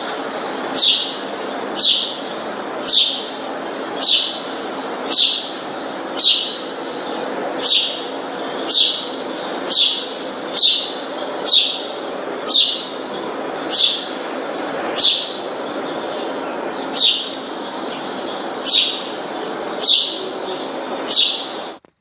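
A bird calling with a short, sharp, falling chirp, repeated regularly about once a second over a steady background hum of noise. The sound cuts off suddenly near the end.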